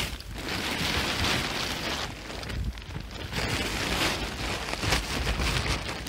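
Reflective tarp rustling and crinkling in swells as it is shaken open and lifted by hand.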